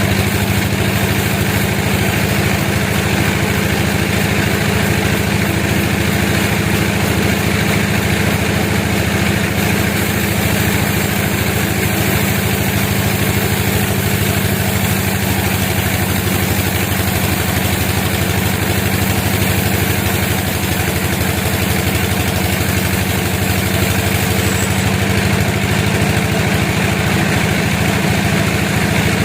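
A sawmill's engine running steadily at a constant speed.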